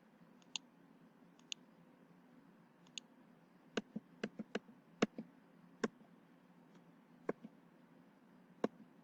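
A dozen or so faint, sharp computer mouse clicks at irregular intervals, bunched in the middle, over a faint steady hum.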